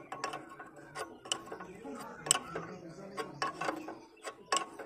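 Steel open-end spanner clicking against a fuel-pipe union nut on a diesel engine's injection pump as the nut is worked tight: irregular sharp metal clicks, several a second.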